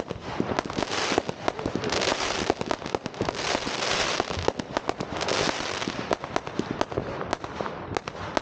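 Fireworks and firecrackers going off in a dense, irregular stream of sharp bangs, with stretches of rapid crackling in between.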